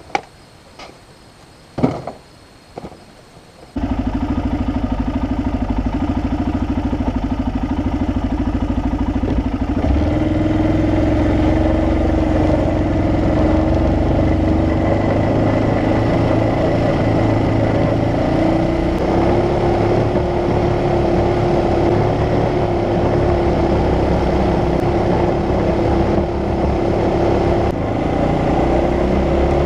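A few knocks, then a vehicle engine starts running about four seconds in and keeps going steadily, getting louder and picking up about ten seconds in as it drives off, its pitch shifting slightly as it goes.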